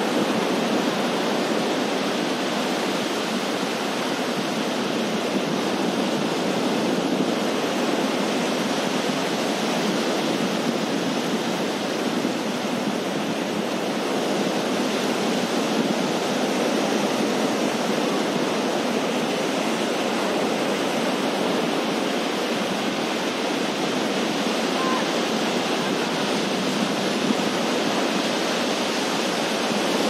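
Surf breaking on a sandy beach: a steady, unbroken wash of wave noise.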